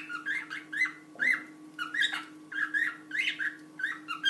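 Budgerigar chattering: a rapid, continuous run of short chirps, several a second.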